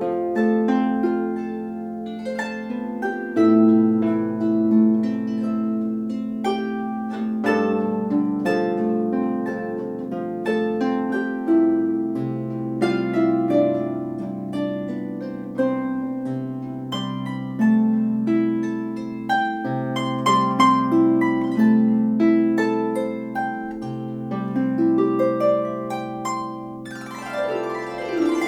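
A 34-string Celtic harp playing a tune: plucked melody notes over ringing bass notes, with a quick sweep across the strings near the end.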